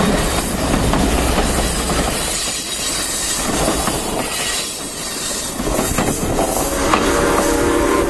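Passenger cars of a train rolling past on the rails, steel wheels clicking over rail joints with some wheel squeal on the curve. Near the end a steady whistle from the locomotive starts to sound.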